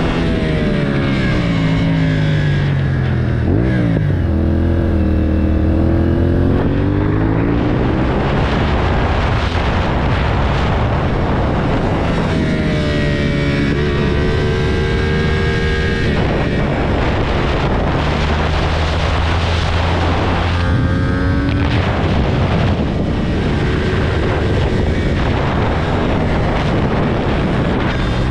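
Sport motorcycle engine heard from the rider's seat, revving up and dropping back again and again through corners and gear changes, with a long pull up through the revs midway. A steady rush of wind noise runs under it.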